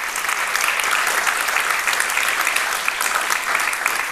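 Audience applauding, many hands clapping at once at a steady level.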